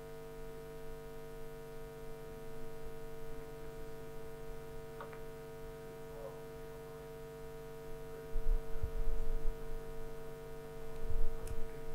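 Steady electrical mains hum, with a few low thuds in the later part.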